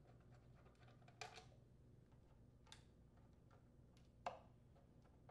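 Three faint, short clicks of a screwdriver and small metal screws being worked out of a small-engine blower housing, over a low steady room hum.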